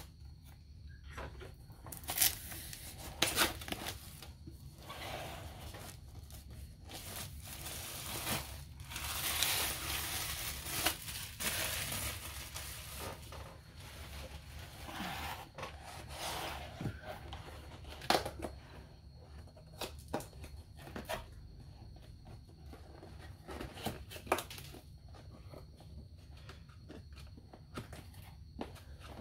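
A long cardboard box being cut open and handled on a wooden table: tearing at its seal, rubbing and sliding, with scattered clicks and knocks and a longer scratchy stretch about a third of the way in.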